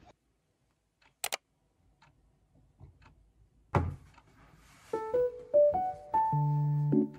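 Near silence broken by two sharp clicks about a second in and a thump a little before four seconds; from about five seconds in, background music on piano-like keyboard with held, stepping notes.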